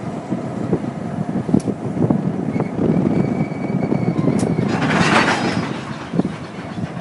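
Two EMD GP38-2 diesel locomotives, 16-cylinder two-stroke engines, rumbling as they move slowly past, with strong wind buffeting the microphone. A thin squeal sounds briefly midway, and a short hissing burst comes about five seconds in.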